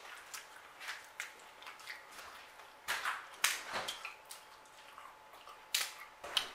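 Close-up eating sounds: scattered wet smacks and clicks of chewing and of hands picking at a seafood boil of crab legs and baked chicken, a few of them sharper, the loudest about three seconds in and again near the end.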